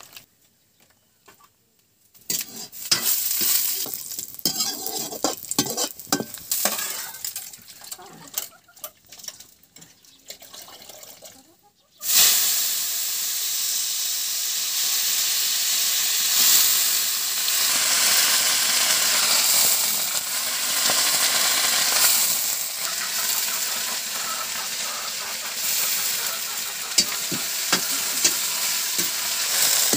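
Shredded cabbage being handled wet in a bucket of water gives irregular rustling and squelching. About twelve seconds in, a sudden loud, steady sizzle starts as the cabbage frying in hot oil in a kadai is stirred.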